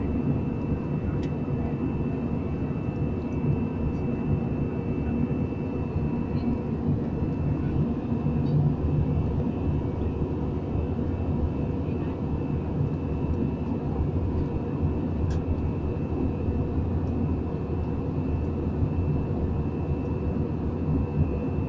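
Steady engine and airflow noise heard inside an airliner's passenger cabin during the climb after takeoff, an even rumble with a few fixed hum tones.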